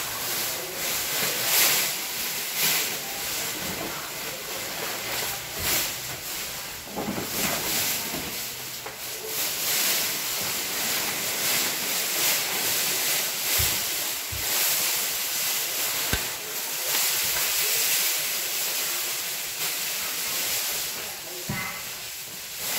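A steady hiss that swells and fades every second or so, with a few brief low knocks partway through.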